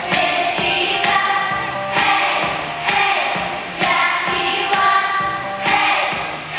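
Children's choir singing together over instrumental music with a steady beat, about one beat a second.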